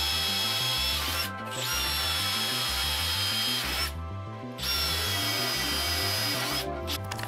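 Cordless drill boring into a metal frame tube, run in three bursts of about two seconds each with short pauses between, its motor whining steadily under load.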